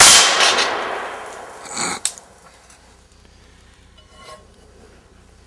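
A single 5.56×45 mm M855 green-tip steel-penetrator rifle round is fired and strikes a steel Level III armor plate. The loud report dies away over about a second and a half, and a shorter burst of noise follows just before two seconds in.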